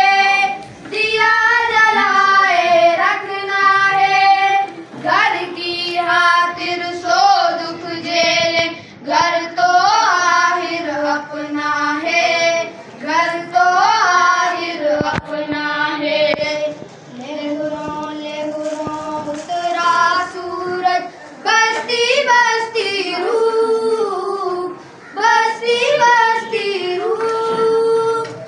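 A small group of schoolboys singing a song together, in sung phrases a few seconds long with short pauses for breath between them.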